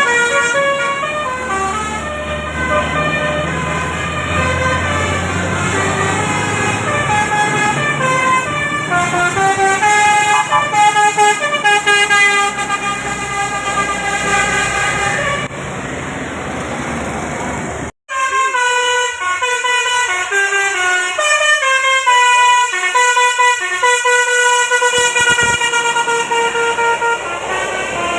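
Bus 'telolet basuri' multi-tone horn playing a melody of held notes that step up and down in pitch, over a low engine rumble. About two thirds of the way through the horn stops for a few seconds of engine and road noise, then after a sudden cut the horn melody starts again.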